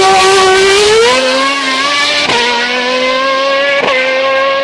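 Formula One car engine running at high revs, its high engine note climbing and then dipping sharply and briefly twice, the way the note breaks on quick upshifts.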